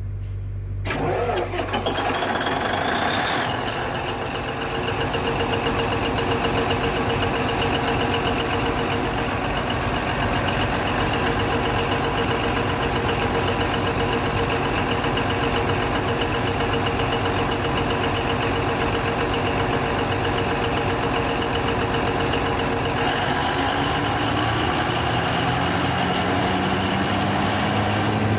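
Denyo DCA610SPM diesel generator engine cranked over by its starter with a rising whine, catching after about three seconds and then running steadily. Here it starts after the broken black wire in the magnetic pickup harness has been rejoined. Some seconds before the end the sound changes and a tone slowly rises.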